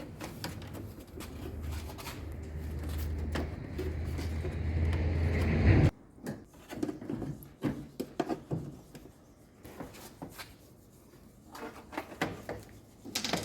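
A steady low hum that grows louder and cuts off abruptly about six seconds in, followed by scattered knocks and rubbing as the front panel of a washing machine is handled and pulled free.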